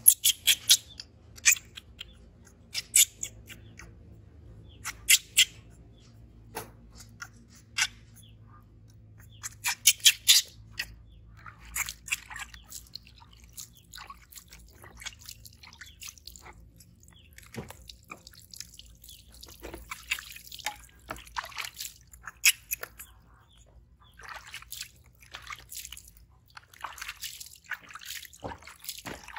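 Water splashing and dripping as a hand scoops water from a bucket and throws it over a wet baby monkey, in a run of short splashes that are loudest in the first ten seconds or so and then smaller and more scattered.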